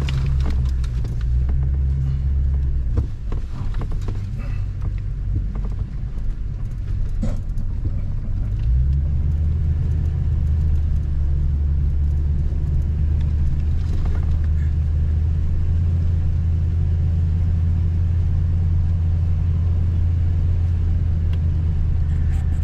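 Toyota Tundra pickup's engine running under way, a steady low drone that eases off about three seconds in and comes back strongly near the ninth second, with scattered light knocks and clicks.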